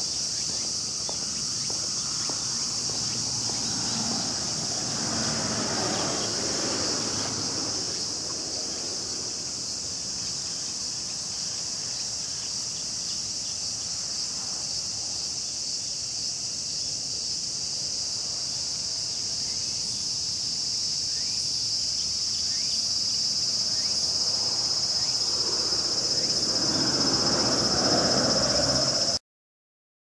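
A steady, high-pitched chorus of insects buzzing in the grass. A broader rushing noise swells up twice, a few seconds in and again near the end, before the sound cuts off abruptly.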